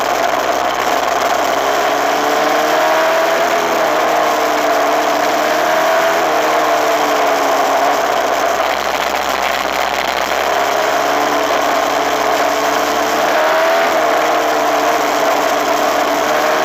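Suzuki RMX250S single-cylinder 250cc two-stroke dirt bike engine running at steady cruising revs, its pitch rising and falling gently with the throttle, over a steady rushing noise.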